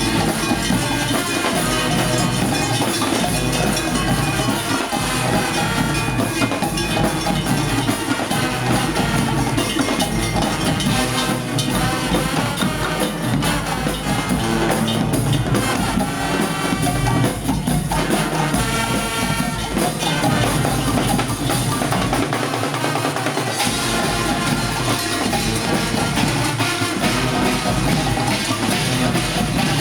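Marching band playing a tune, with pitched instruments carrying the melody over steady drum beats.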